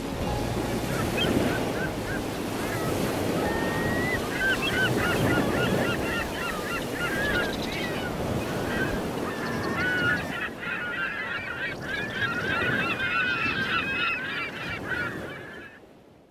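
A flock of geese calling, many short overlapping honks, growing busier after about ten seconds, over a steady low rushing background; it all fades out near the end.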